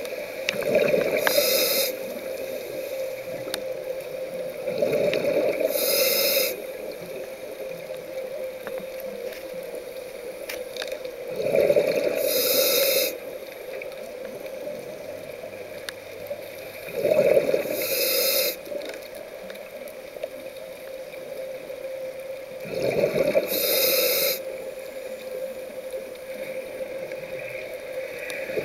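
Scuba diver breathing through a regulator: a bubbling exhale and a short hiss of inhaled air, repeating about every five and a half seconds, five breaths in all.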